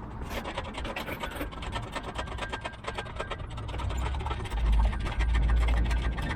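Rapid crackling, creaking and scraping of wood and roots under strain as a small tree is pulled on with a strap. A deep rumble grows loud about four and a half seconds in.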